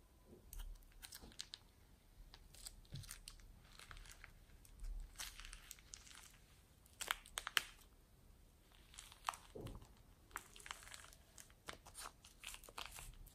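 Clear plastic piping bag crinkling as small foam beads are squeezed out of it onto a bowl of foam beads: faint, scattered crisp crackles and clicks, busiest a few seconds in and again near the end.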